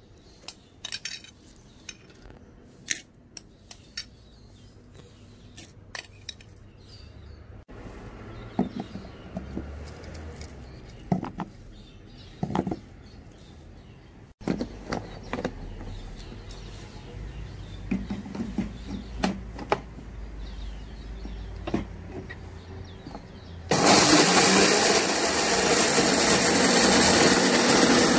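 A metal spoon scrapes and clinks against a ceramic bowl as roasted whole spices are tipped into a glass grinder jar. About 24 s in, a Tefal blender's dry-grinding mill switches on suddenly and runs loud and steady, grinding the roasted spices to powder.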